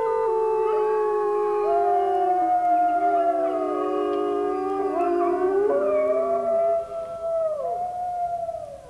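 A pack of arctic wolves howling in chorus, several long voices overlapping and gliding up and down in pitch. The chorus thins out near the end.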